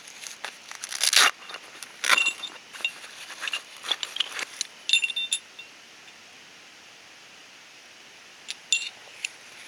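Light metal camping gear clinking and jangling, with brief metallic ringing: a busy run of clinks over the first five seconds or so, then three more near the end.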